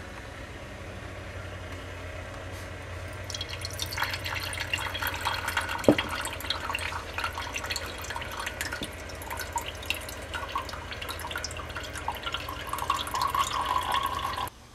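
Watery slurry of benzoic acid crystals poured into a paper-lined funnel, splashing and dripping through the filter into a glass beaker, with irregular small drips and splashes from a few seconds in and one sharp knock about six seconds in.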